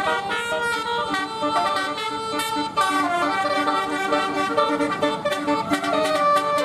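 Indonesian bus 'telolet basuri' musical air horn playing a tune: several horn tones sound together and change pitch in quick steps.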